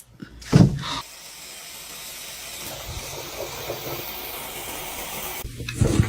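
A steady hiss lasting about four seconds, after a couple of short louder sounds at the start.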